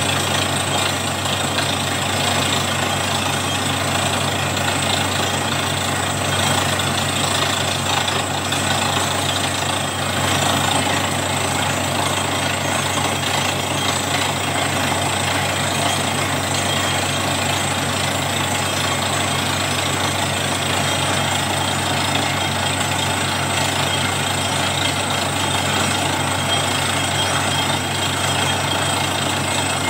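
Truck-mounted borewell drilling rig running steadily and loudly, its engine and compressor droning while air drives the drill. Water and rock cuttings rush and spray out of the bore head, a sign that the bore has struck water.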